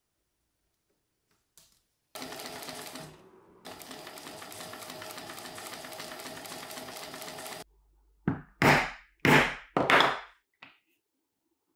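Industrial sewing machine stitching a metal zipper onto black leather, running steadily in two stretches with a brief pause between them. Near the end come four loud short sounds, each about half a second long.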